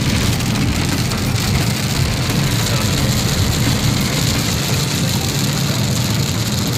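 Steady road noise inside a car driving on a wet highway in heavy rain: a low engine and tyre hum under an even hiss of tyre spray and rain on the car.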